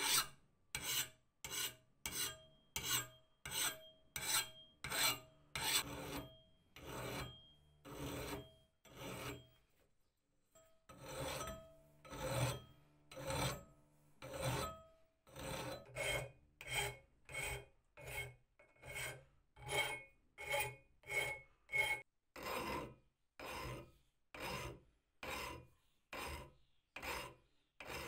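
Flat hand file stroked across the steel cutting edge of an axe head clamped in a vise, rasping in a steady rhythm of about two strokes a second, with a short pause about ten seconds in. The file is taking the black rust and scale off the edge down to bright metal.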